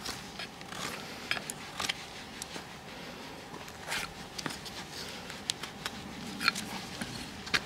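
Hoof nippers snipping and a hoof knife paring a pony's hoof during a trim: irregular short crunching clicks and scrapes, the loudest about six and a half seconds in.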